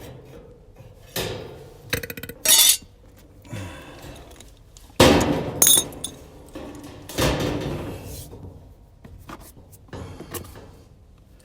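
Metal knocks and clatter as dryer panels, parts and tools are handled during reassembly: a string of separate sharp knocks, some briefly ringing, the loudest about five seconds in.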